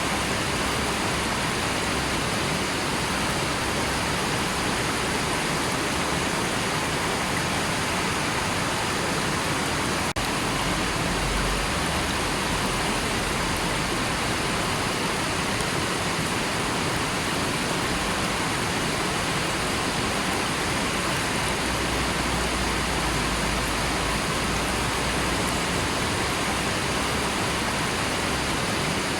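River water rushing and flowing in a steady, unbroken wash of noise.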